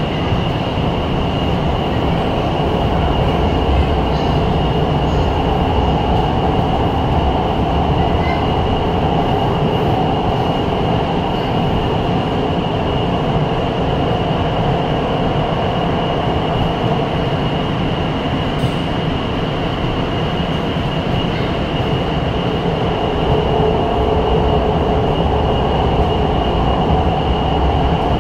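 Fuzhou Metro Line 4 Type B metro train running between stations, heard from inside the car: a steady rumble of wheels on rails under a constant high-pitched whine.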